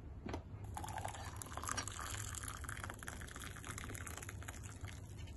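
Hot water poured from a kettle into a glass mug with a tea bag and a spoon in it. The steady splashing pour begins just under a second in and stops near the end.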